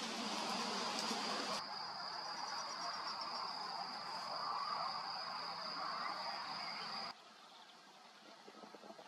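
A steady, high-pitched, insect-like trill over outdoor background noise, cutting off suddenly about seven seconds in.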